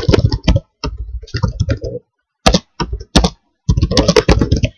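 Typing on a laptop keyboard: quick runs of keystrokes with short pauses between them.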